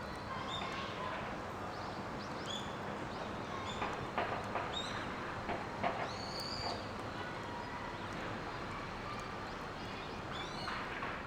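Outdoor ambience in woodland: a steady rushing background with scattered short bird chirps and a few light clicks around the middle.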